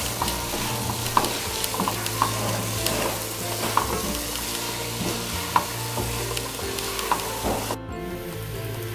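Diced onion sizzling in a frying pan as a spoon stirs it, with occasional clicks of the spoon against the pan. The sizzle cuts off suddenly near the end.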